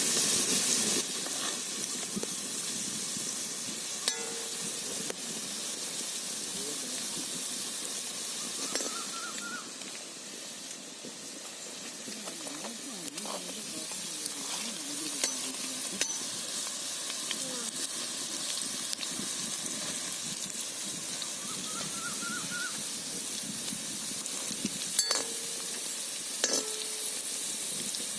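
Onion pakoda (onion fritters) deep-frying in hot oil, a steady sizzle as the fritters brown, with a few light clicks now and then.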